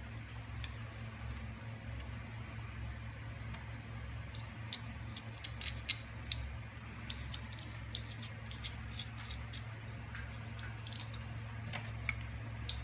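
Scattered small clicks and ticks of a hex driver turning bolts and handling a carbon-fibre quadcopter frame, irregular and sparse, over a steady low hum.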